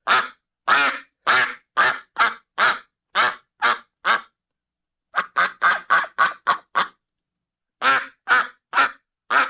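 Duck quacking: a series of short, separate quacks in three runs with brief pauses between them, the middle run quicker than the others.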